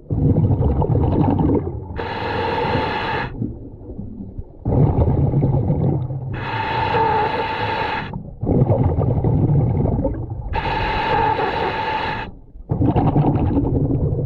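Scuba diver breathing through a regulator underwater: low rumbling bursts of exhaled bubbles alternate with shorter pitched, buzzing inhalations through the regulator, three full breaths about four seconds apart.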